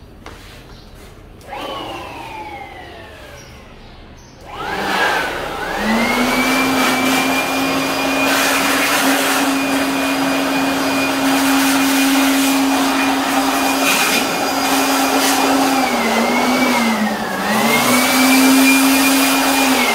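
Motor of a handheld electric dust cleaner used to clean dust out of an old desktop PC. A whine falls away about a second and a half in; then, a few seconds in, the motor starts, its whine rising quickly to a steady pitch. The pitch dips briefly a few times near the end, and the motor cuts off suddenly.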